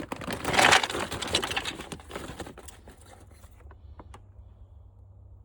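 Small plastic and metal scrap parts from a dismantled floor fan being handled, rattling and rustling for a couple of seconds, then a few light knocks as pieces are set down.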